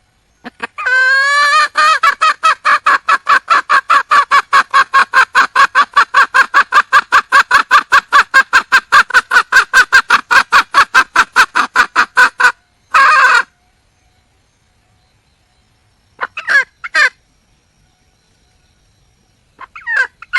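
Red junglefowl hen calling for a male: a long, rapid run of short clucking notes, about four or five a second, for some eleven seconds. It then gives one longer note, a pair of short notes, and a few more short notes near the end.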